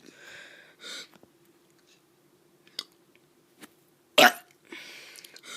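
A child's short, loud burp about four seconds in, with breathy huffs before and after it.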